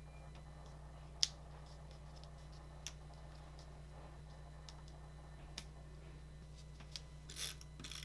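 Quiet handling of paper die cuts being placed and pressed onto scrapbook pages: a few sharp light clicks and taps, the loudest about a second in, and a brief rub of paper near the end, over a steady low hum.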